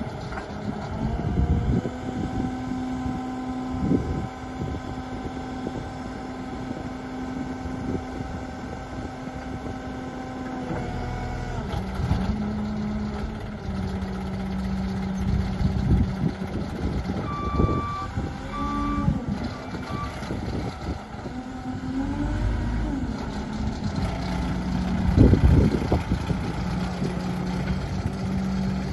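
Manitou MT 1740 SLT telehandler's diesel engine running as the machine manoeuvres, its pitch rising and falling with the throttle. Its reversing alarm beeps about three times a little past the middle, and a few knocks sound, the loudest near the end.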